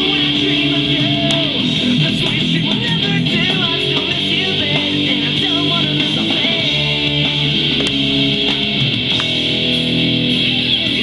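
A recorded pop-rock song playing, with strummed guitars and a lead vocal.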